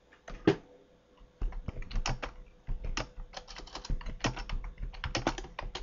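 Typing on a computer keyboard: a quick, irregular run of key clicks that starts about a second and a half in, after a single click near the start.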